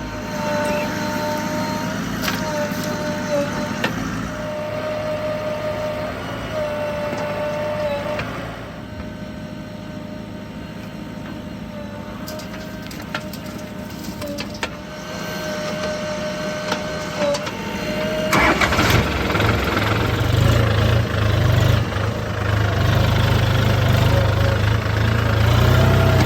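Diesel engine of heavy earthmoving machinery running, with a steady whine that breaks off now and then. About two-thirds of the way in, the engine grows much louder and deeper as it comes under load.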